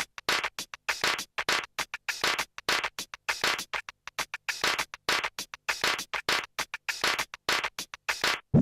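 Electronic intro music, chopped into quick stuttering stabs about five times a second.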